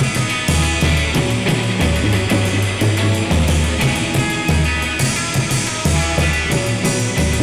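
Live rock band playing: a drum kit with cymbals keeping a steady beat, electric guitar, and low notes that change in a repeating pattern about once a second.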